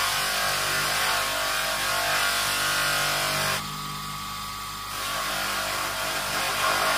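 Electric bench motor spinning a small cloth buffing wheel while a brass fitting is pressed against it with polishing paste: a steady motor hum under a rubbing noise. Near the middle the rubbing stops for about a second as the piece is lifted off the wheel, leaving only the motor running, then resumes.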